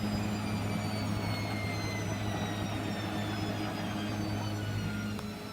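Hotpoint WML520 washing machine's motor whining steadily lower in pitch as the drum slows down after a spin attempt abandoned because the towel load is unbalanced. A steady low hum runs underneath.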